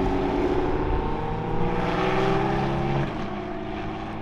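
Car engine accelerating, its note rising slowly and steadily, then easing off about three seconds in.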